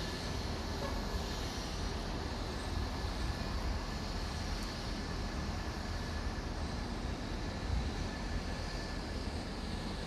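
Steady outdoor city background noise: an even low rumble under a continuous hiss, with no distinct knocks or tool sounds.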